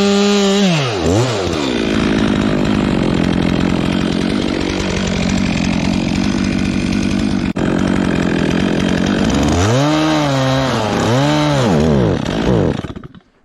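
Stihl MS 362 two-stroke chainsaw at full throttle, then loaded down in a long cut through firewood. Near the end it is revved up and down three times, then drops away.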